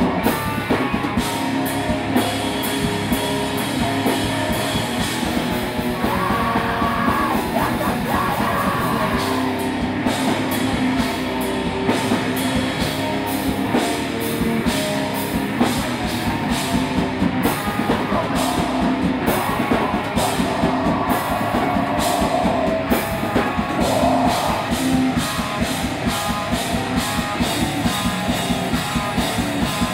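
A live heavy metal band playing loud, with distorted electric guitars, bass guitar and a fast drum kit. A vocalist shouts into the microphone over it.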